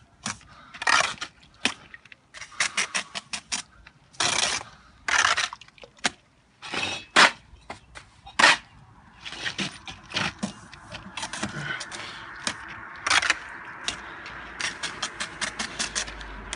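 Steel brick trowel spreading wet mortar along a brick course: short, irregular scrapes and knocks of the blade through the mortar and against the bricks as the bed is laid and furrowed for full joints.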